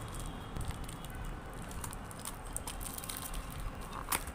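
Clear plastic wrap crinkling and cardboard rustling as a parcel is unwrapped by hand, with a sharp click near the end.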